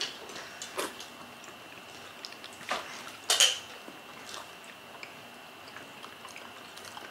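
Eating by hand at a table: a few scattered light clicks and taps as food is picked at and handled against the dishes, the loudest a sharp clink about three and a half seconds in. A faint steady high whine runs underneath.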